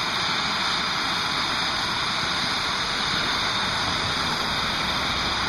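Hand-held gas torch burning with a steady hiss, its flame heating a steel saw-blade knife blank to red heat, the non-magnetic temperature, before the oil quench.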